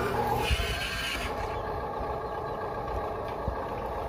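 Huina 1573 RC dump truck's small electric motor and gearbox running steadily as it drives on dirt, with a knock about half a second in.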